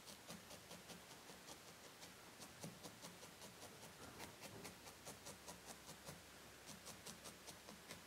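Felting needle stabbing repeatedly into a small wool sculpture, a faint, steady run of quick scratchy ticks at about four or five a second.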